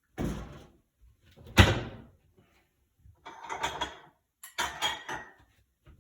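Kitchen handling sounds: a few knocks and clatters, the loudest a single sharp knock about one and a half seconds in, followed by two short rattling, scraping stretches.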